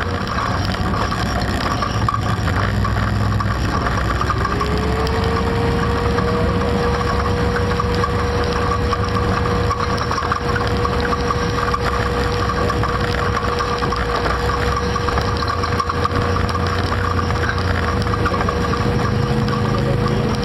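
ATV engine running steadily while riding a rough dirt trail, with a whine that glides up about four seconds in and then holds a steady pitch.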